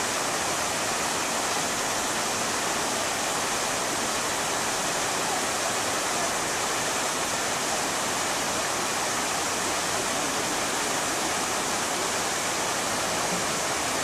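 Dzhur-Dzhur waterfall: water pouring down the cliff into a rocky pool, a steady, unbroken rush.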